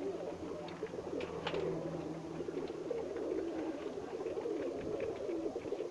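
Birmingham roller pigeons cooing, several overlapping into a continuous low, wavering murmur, with a few faint clicks.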